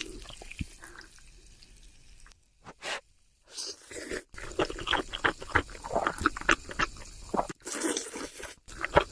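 Eating sounds of Chapagetti noodles and deep-fried squid: a few scattered wet mouth sounds at first, then rapid crisp crunching and chewing from about halfway through.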